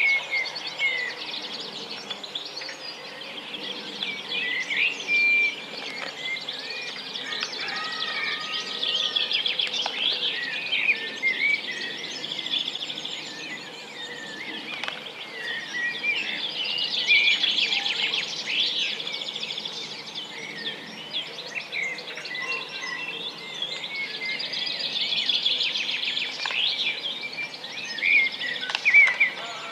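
Several small songbirds singing and chirping at once, overlapping whistled phrases and fast trills that go on without a break.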